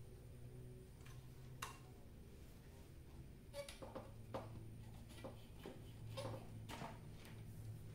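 Irregular light clicks and taps from hands working among the wiring and circuit board of an opened CRT television, coming more often in the second half, over a faint steady low hum.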